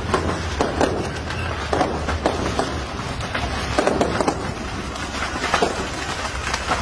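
Fireworks from a burning fireworks shop going off: irregular pops and bangs over a steady rushing noise.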